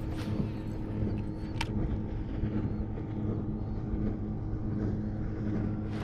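Fishing reel cranked fast and steadily, its gears giving a steady whirring hum as a Bull Shad swimbait is burned back across the surface. There is one sharp click about a second and a half in.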